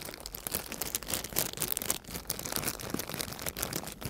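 A sealed toy wrapper crinkling as it is handled and squeezed, with a dense run of small irregular crackles and rustles.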